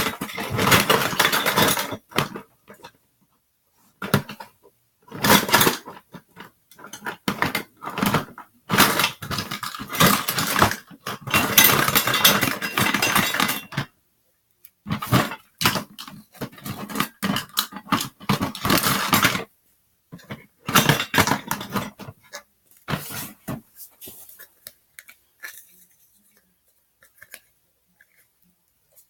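Containers clattering and knocking together while someone rummages through them for one, in irregular bursts with short silent gaps, petering out to faint knocks in the last few seconds.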